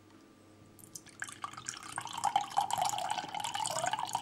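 Orange-mandarin juice drink poured from a carton into a stemmed wine glass. The stream starts splashing into the glass about a second in and keeps running as the glass fills.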